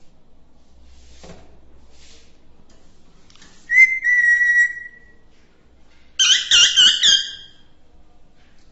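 A parrot whistling: one long, level whistle about four seconds in, then a louder quick warbling run of about four notes a couple of seconds later.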